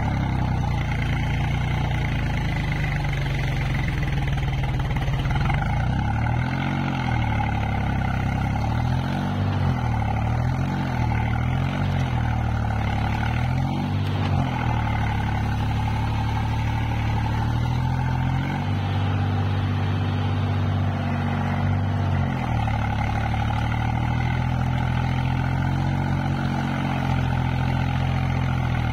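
Swaraj 735 FE tractor's three-cylinder diesel engine running under load as the tractor pulls through deep mud on iron cage wheels. The engine note rises and falls several times from about six to fourteen seconds in, then holds steady.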